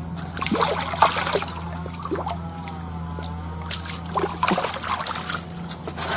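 Water splashing and sloshing in a shallow creek as a person wades and a hooked marbled eel is dragged thrashing through the water, in uneven bursts about half a second in, around four to five seconds in, and near the end.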